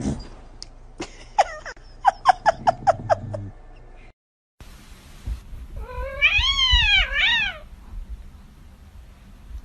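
Cat meowing: a quick run of about eight short meows, then after a short break one long wavering meow that rises and falls.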